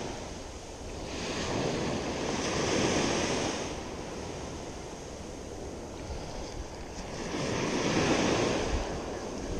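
Small waves breaking and washing up a sandy beach, the surf swelling twice as waves come in.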